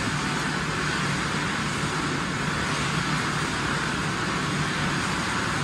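Steady machinery noise of a tile factory's packing line: an even rushing din with a constant low hum underneath.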